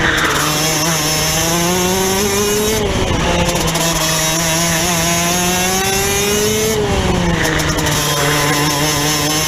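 Rotax DD2 kart's 125cc two-stroke single-cylinder engine heard onboard at racing speed. Its pitch climbs steadily under acceleration and falls sharply as the throttle is lifted for a corner, twice: about three and seven seconds in.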